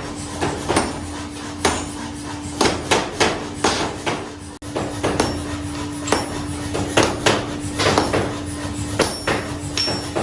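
Repeated hammer blows on metal, irregular and a few a second, as in forging a metal rod, over a steady machine hum.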